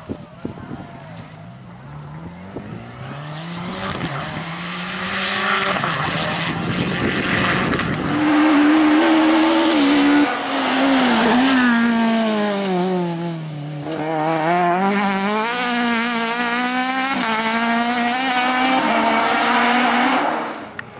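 BMW 3 Series rally car engine at full throttle on a stage, growing loud as it approaches. Its pitch climbs through the gears, falls for about two seconds as the driver lifts off and slows, then rises again in steps as it pulls away. The sound cuts off abruptly near the end.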